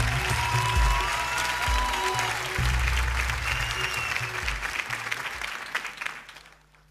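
Studio audience applauding over show music with a steady bass beat; both fade out shortly before the end, leaving near silence.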